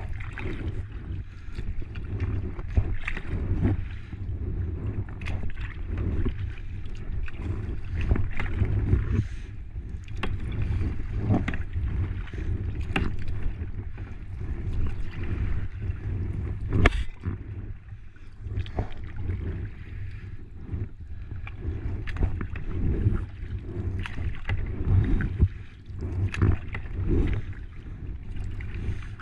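Kayak paddling: a double-bladed paddle dipping and splashing water stroke after stroke, with drips and small clicks, over a steady low wind rumble on the microphone. One sharp knock stands out about 17 seconds in.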